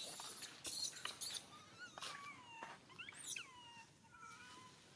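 Baby long-tailed macaque crying in a run of short, high-pitched squeals, several sliding down in pitch, with a few harsh, hissy bursts in the first second and a half.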